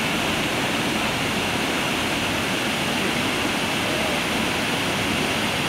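Water pouring over a river weir: a steady, unbroken rush of white water.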